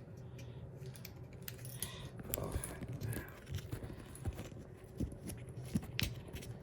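Handling sounds of a bidet hose and its fittings as a small cap is unscrewed from the hose end: scattered light clicks, taps and rattles, busier from about two seconds in.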